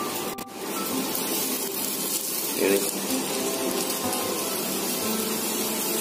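Oil sizzling steadily under a large wheat paratha frying on a hot iron tawa, with faint background music under it.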